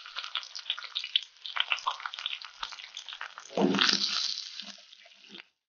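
Fenugreek seeds and pandan leaves crackling and sizzling in hot coconut oil in a clay pot: a dense patter of small pops, swelling into a louder burst of sizzling a little over three and a half seconds in as the wooden spoon stirs. The sound then fades to a few crackles and cuts off just before the end.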